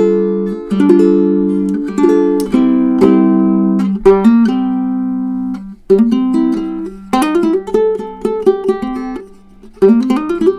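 Tenor ukulele with a figured koa body and redwood top, played solo without effects: ringing chords at first, then a run of quickly picked notes from about halfway, dying away briefly before playing picks up again near the end.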